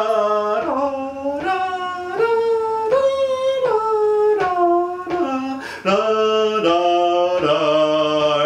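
A man singing a major/minor triad arpeggio exercise, about a dozen notes each held under a second and stepping up and down in pitch, with a short break a little past the middle.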